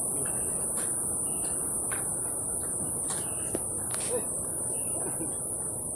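Insects drone in one steady, unbroken high-pitched chorus over a constant low rush of outdoor noise.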